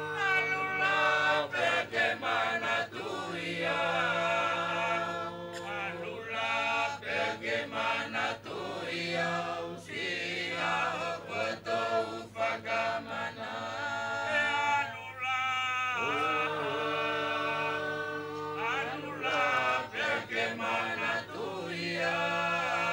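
A chorus of men's voices singing an unaccompanied chant in held notes, in phrases of a few seconds with short breaks between them. It is the sung accompaniment to a Wallisian me'e dance.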